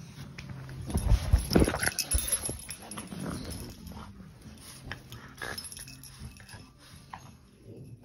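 Small dog making short noises while it moves about on a person on a bed, loudest between about one and two seconds in, with rustling of fabric and light knocks.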